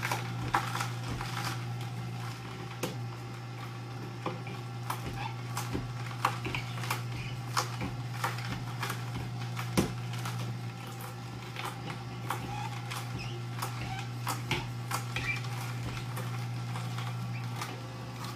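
Horizontal auger juicer's motor humming steadily as carrots are pushed into it with a plunger, the auger crushing them with irregular cracks and crunches.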